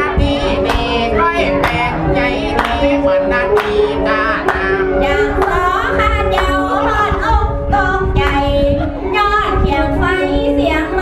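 Nan-style northern Thai so folk singing: a voice sings a bending melodic line over a salo bowed fiddle holding steady notes and a plucked phin lute striking regular notes.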